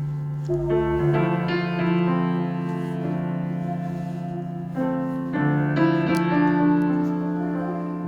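Piano playing slow sustained chords that are struck a few times and left to ring and fade.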